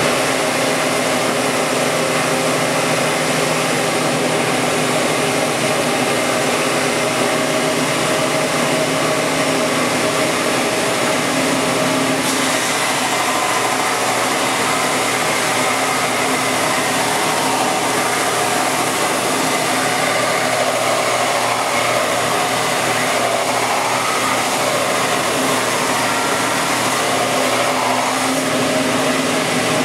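Shopsmith Mark V belt sander head, driven by a V-belt, running steadily at speed under power. It makes an even machine noise with a steady hum and shuts off near the end.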